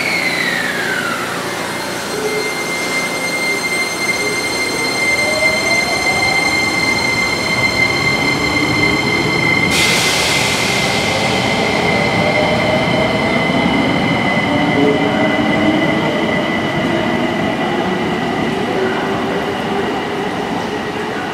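JR Kyushu 885 series electric express train running through the station. A high whine falls away over the first two seconds, then low motor whines rise slowly in pitch as the train gathers speed and pulls away. A steady high squeal, typical of wheels on the rails, runs under it, with extra high tones joining suddenly about ten seconds in.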